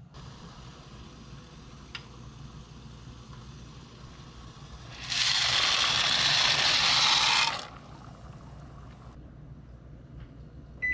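A stockpot of water boiling steadily on a stovetop. About five seconds in, dry macaroni is poured into it from a bowl, a loud rush of noise lasting about two and a half seconds. A short electronic beep from a microwave timer comes right at the end.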